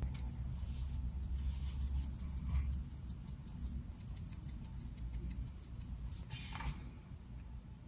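A seasoning shaker shaken over food with quick, even strokes, rattling at about seven light ticks a second. About six and a half seconds in, a brief rustling hiss.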